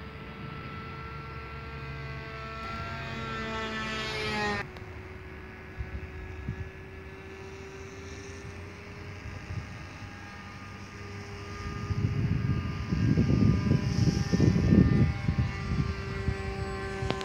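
Radio-controlled model airplane's propeller motor droning overhead, its pitch rising over the first few seconds until the sound drops off sharply about four and a half seconds in, then a steadier, quieter drone. From about twelve to fifteen seconds in, a loud irregular low rumble covers it.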